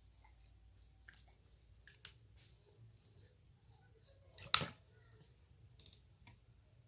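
Quiet handling sounds: scattered small clicks and rustles, with one sharper click a little past halfway through.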